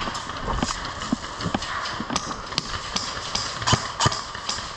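Footsteps of an airsoft player at a run, irregular sharp steps about two or three a second.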